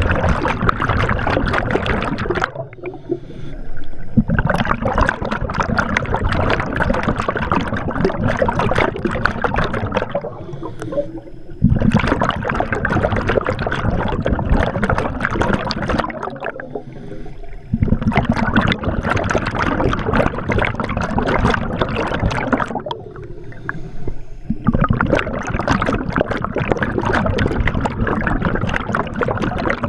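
Scuba diver's regulator breathing underwater: long bursts of rushing, crackling exhaust bubbles, each a few seconds long, broken by short quieter pauses as the diver breathes in, about five breaths in a steady rhythm.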